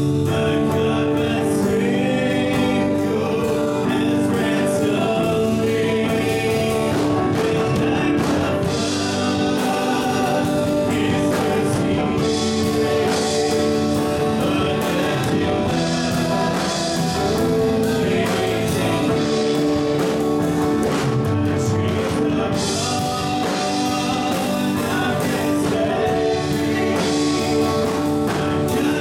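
Live worship band playing and singing a gospel song: electric and acoustic guitars and drums, with a man and a woman singing.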